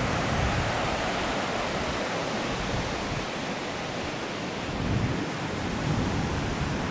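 Steady rush of ocean surf washing on a sandy beach, mixed with wind, swelling into a louder low surge about five seconds in.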